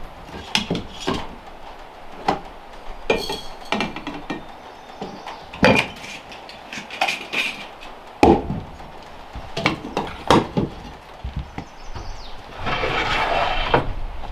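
Irregular knocks and clinks of hard objects being struck and handled, with a scraping stretch of about a second near the end.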